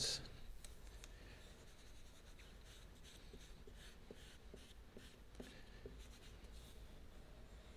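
Faint scraping and rubbing of a plastic squeegee pressing vinyl wrap film down onto a fender, in a series of short irregular strokes.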